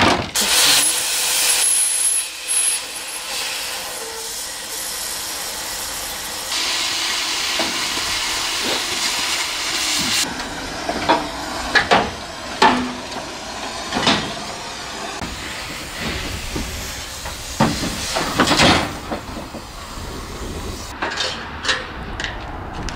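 Gas cutting torch hissing steadily as it cuts through a car's steel bodywork, then a run of sharp metal clanks and knocks.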